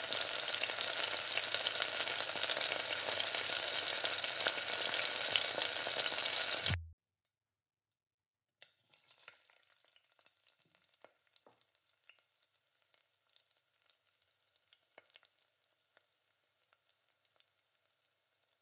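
Loud, steady sizzling of a blended sauce poured through a mesh strainer into a hot stainless steel pan, cutting off abruptly about seven seconds in. After a short silence come faint scrapes and small taps of a silicone spatula stirring the thick sauce in the pan.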